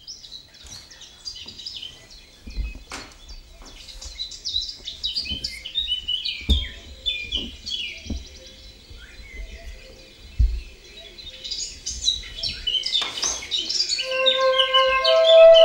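Birds chirping, a busy chorus of short, quick calls. There are a few dull low thumps in the first two-thirds, and about two seconds before the end held musical notes come in under the birdsong.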